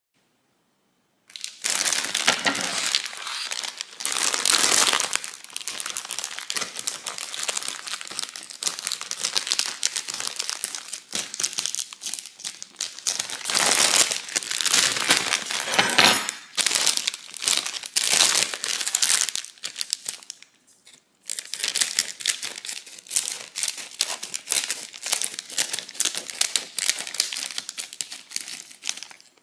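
Plastic food packaging bags crinkling as they are handled and pulled open, starting about a second in, with a brief pause about two-thirds of the way through.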